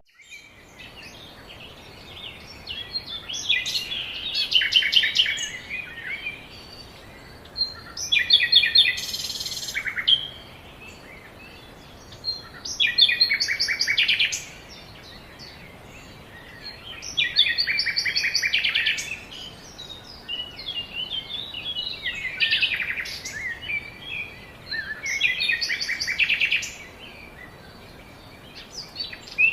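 A songbird singing, repeating a phrase of rapid notes about six times, each phrase about two seconds long with a pause of a couple of seconds between.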